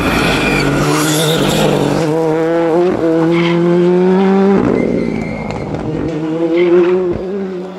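Ford Fiesta rally car's engine revving hard under acceleration, its pitch climbing through the gears, dropping sharply about halfway through and then climbing again.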